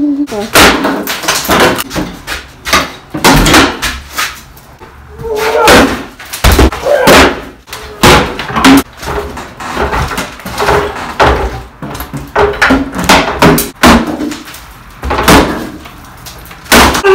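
Sledgehammer blows smashing old wooden kitchen cabinets and shelving off the wall: many loud, irregular bangs and cracks of splintering wood, with boards knocked loose and clattering down.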